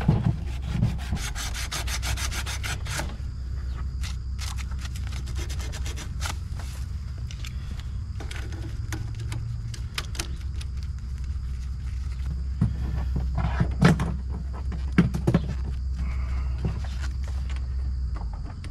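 Tubing cutter being worked around the copper liquid line to cut out the filter drier: a rubbing scrape with clicks and knocks, including a quick even run of ticks about a second in. A steady low hum runs underneath and stops near the end.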